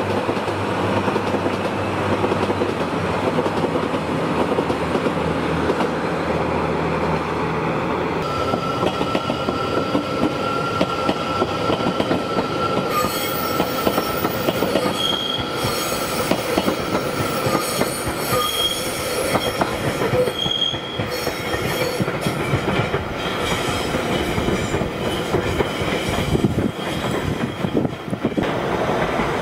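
Electric multiple-unit train running past on the tracks of a station yard, with steady wheel-and-rail rumble and clatter. From about eight seconds in, its wheels give off a thin steady squeal that comes and goes until about twenty seconds in, and the noise falls away near the end as it leaves.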